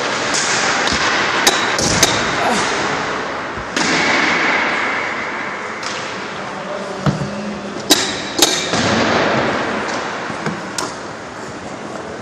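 Ice hockey play: sharp clacks of sticks and puck in two pairs, one early and one about eight seconds in, over the steady noise of the rink, with a hiss starting about four seconds in.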